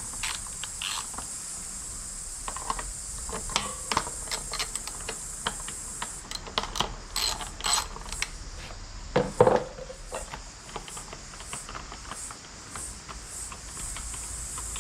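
Irregular clicks and clinks of hand tools, a ratchet among them, working the bolts of a motorcycle's front mudguard, with one louder knock about two-thirds of the way in. A steady high insect chirr runs behind.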